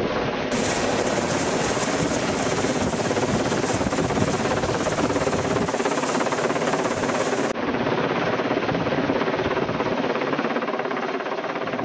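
Large military helicopter hovering overhead, its rotor and engine noise loud and steady.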